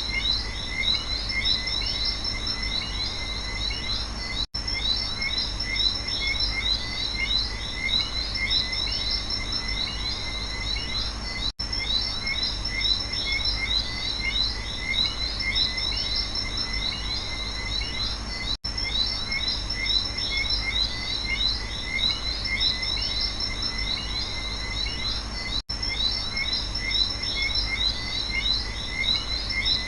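Rainforest night chorus of frogs and insects: a dense mass of quick chirping calls over a steady high trill, with a low rumble underneath. The sound drops out for an instant about every seven seconds.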